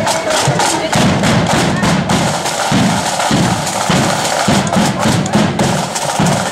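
Marching flute band's drum corps beating a march: crisp snare strikes over bass drum beats about twice a second.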